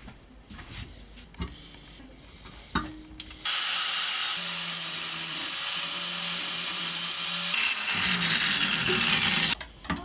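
A few light clicks of metal handling, then about a third of the way in an angle grinder starts cutting a small steel part held in a bench vise, grinding steadily for about six seconds and cutting off suddenly near the end.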